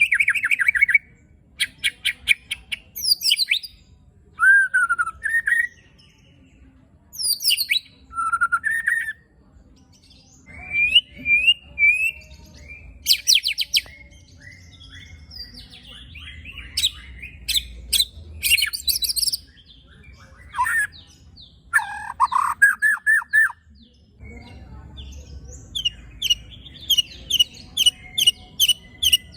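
White-rumped shama singing harsh, aggressive phrases: bursts of rapid sharp 'shot' notes and rasping chatter, broken by slurred whistles and short pauses, ending in a fast, even run of about two or three sharp notes a second. This is the rough 'tembakan and besetan' song used to provoke other shamas.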